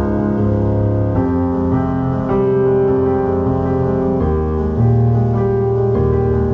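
Background music: slow, sustained keyboard chords that change about every second or so.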